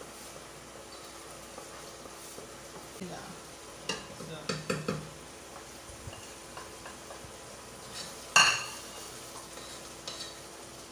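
Wooden spoon stirring a thick onion, garlic and ginger paste frying in oil in a pot, with a light sizzle. A quick cluster of knocks against the pot about four to five seconds in, and one sharp clink about eight seconds in, the loudest sound.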